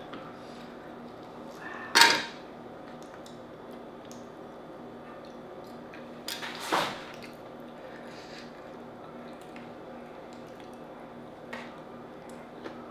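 Sharp clinks of crab shell and utensils against a plate as Dungeness crab meat is picked apart, a loud one about two seconds in and another about six and a half seconds in, over a faint steady hum.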